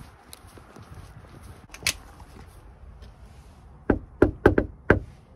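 A fist knocking on a panelled front door: five quick raps about four seconds in, after faint footsteps on pavement.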